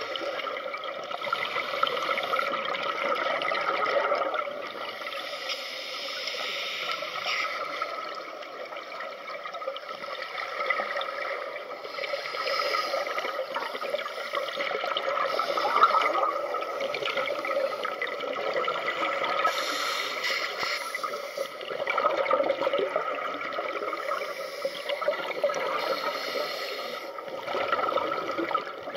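Underwater bubbling and gurgling from scuba divers' exhaled regulator air, heard through the submerged camera, swelling and easing every few seconds.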